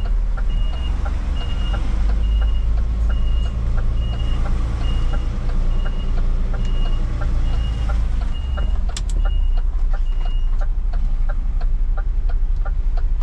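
Articulated lorry's reversing alarm beeping at a steady pace, about three beeps every two seconds, over the low running of its diesel engine; the beeping stops about ten seconds in. A regular ticking, about two a second, runs alongside.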